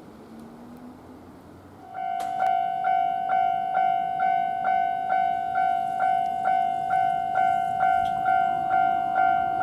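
Japanese railway level crossing warning bell starting about two seconds in over low background noise, then ringing in an even kan-kan rhythm of about two and a half strokes a second: the signal that a train is approaching and the barriers are coming down.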